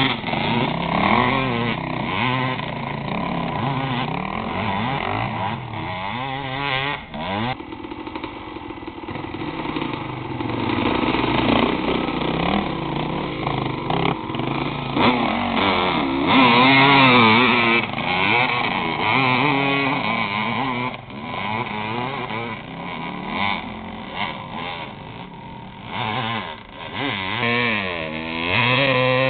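Dirt bike engine revving hard and easing off again and again, its pitch rising and falling in surges, under load on a steep hillclimb.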